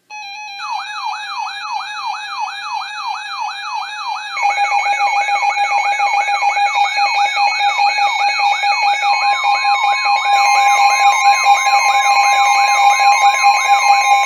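Several weather-alert radio alarms sounding at once: a steady tone, a siren tone sweeping up and down about three times a second, and higher warbling tones. They grow louder about four seconds in as another alarm joins, and a further steady tone comes in around nine seconds.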